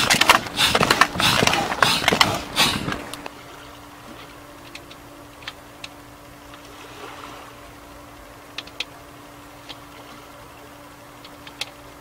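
An inflatable boat being pumped up through a hose: rhythmic whooshing air-pump strokes, about two or three a second, stop about three seconds in. A faint steady hum with a few small clicks follows.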